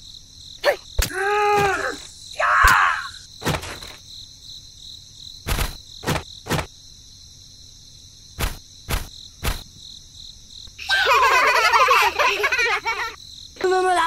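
Steady high insect chirring, with a string of sharp knocks and a few short vocal sounds.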